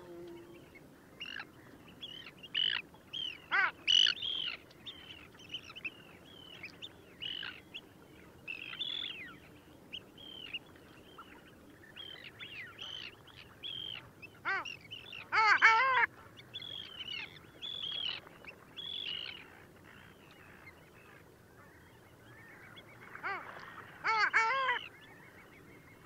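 Long-tailed ducks calling in a flock: many short overlapping calls, with louder, drawn-out calls about fifteen seconds in and again near the end.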